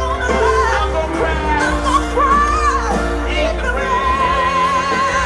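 Live rock band playing a slow, gospel-tinged song with a singer. Near the end the singer holds a long, wavering high note.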